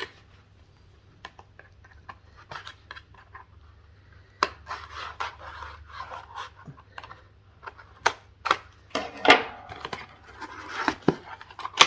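Handling of a small lipstick and its packaging: scattered clicks, scrapes and rustles as it is unwrapped and uncapped, with a louder knock about nine seconds in.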